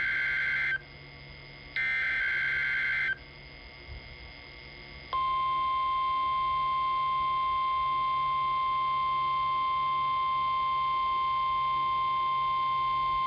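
NOAA Weather Radio weekly test signal: two harsh, buzzy bursts of SAME digital header data tones, then, after a short pause, the steady 1050 Hz warning alarm tone starting about five seconds in.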